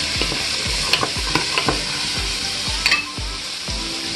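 Snap peas, celery and onion sizzling as they sauté in a pot, stirred with a spatula in quick, regular strokes. A few sharp clicks of the spatula against the pot come about one second and three seconds in.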